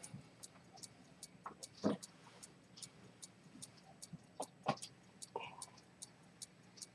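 Faint, even ticking of a c. 1875 Dent 18k gold key-wound fusee pocket watch with a pivoted-detent chronometer escapement, about two and a half ticks a second. A couple of soft knocks are heard, around two seconds in and again near five.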